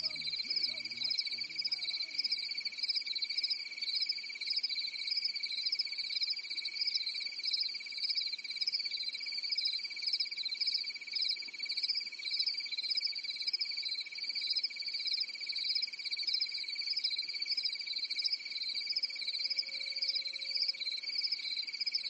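A steady chorus of singing insects: one continuous high trill with a higher, pulsing song layered over it, cutting off abruptly at the very end.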